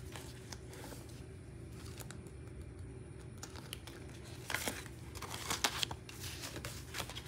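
Paper banknotes rustling as a stack of bills is pulled from a cash binder and fanned out, with a cluster of crisp rustles and soft taps about four and a half to six seconds in, over a faint low steady hum.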